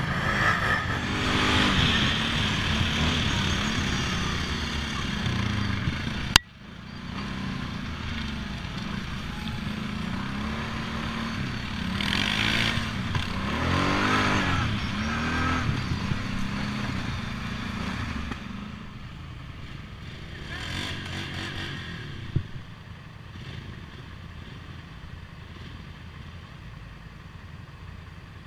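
Quad ATV engines running and revving, their pitch rising and falling repeatedly with the throttle. There is a sharp click about six seconds in and a smaller knock later, and the engine noise settles to a lower, steadier level for the last third.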